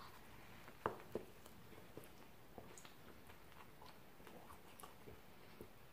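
Faint sounds of a man chewing a mouthful of naan sandwich: two sharp clicks about a second in, then scattered soft mouth clicks and ticks.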